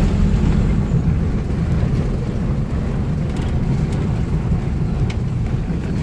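A car's engine running with road and tyre noise, heard from inside the moving vehicle as a steady low rumble.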